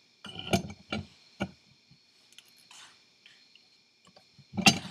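Metal parts of a Ford 6.0 Powerstroke VGT turbo clunking and scraping as the bearing housing is set onto the turbine housing and turned to find the spot where it seats. There are several knocks in the first second and a half, and a louder clunk near the end.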